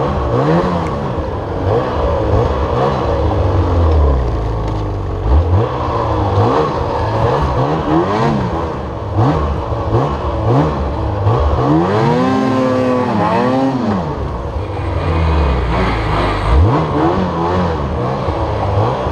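Lynx Boondocker 3700RE snowmobile's Rotax 800R E-TEC two-stroke twin engine revving up and down again and again as it is ridden through deep snow, the throttle blipped every second or two. Two longer, higher revs come about twelve seconds in.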